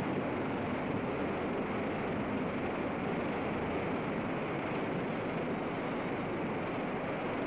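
Water deluge gushing from the flame pit of a rocket static test stand, a steady heavy rush of water.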